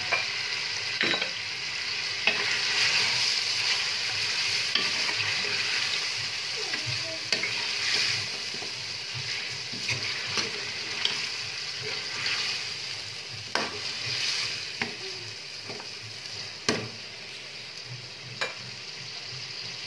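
Beef masala with freshly added whisked yogurt sizzling in a metal pot as it is stirred and fried, with a steady hiss and a spoon scraping and knocking against the pot every few seconds.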